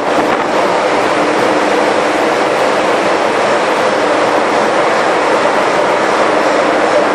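Loud, steady engine-room machinery noise from a container ship's MAN B&W 12K90MC main engine, a twelve-cylinder low-speed two-stroke diesel, and its auxiliaries, running together as one dense din with no distinct knocks or rhythm.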